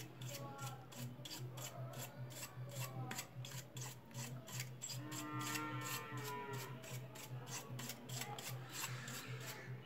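Brush scrubbing dust off a router's circuit board in quick repeated strokes, about three a second.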